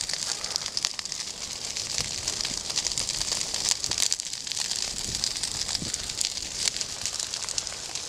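Wildfire burning through dry grass and young pines, crackling with a dense run of sharp pops over a high hiss.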